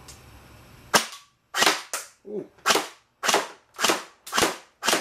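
Electric M4 airsoft rifle (AEG) firing single shots in semi-auto: a steady series of about eight sharp cracks, a little under two a second, starting about a second in.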